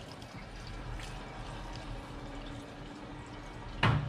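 Gasoline trickling out of a string trimmer's fuel tank through a funnel into a plastic gas can. A single sharp knock sounds near the end.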